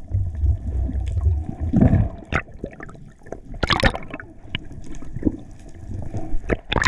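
Water sounds heard through an underwater action camera's housing: a steady low rumble of moving water, with several short, louder rushes about two seconds in, about four seconds in and near the end.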